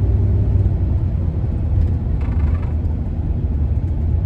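Van's engine and road noise heard from inside the cab: a steady low rumble.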